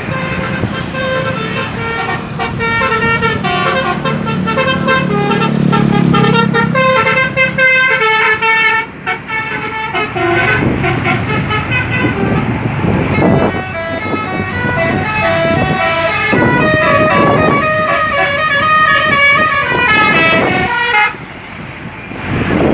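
Bus 'telolet' multi-tone horn playing quick melodic runs of stepped notes, one pitch after another, over a bus engine running. The horn stops about 21 seconds in.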